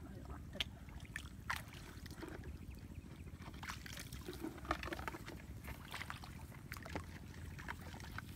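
Feet wading and hands working in shallow muddy paddy water: irregular small splashes and sloshes, with a few sharper splashes, the strongest near five seconds in, over a steady low rumble.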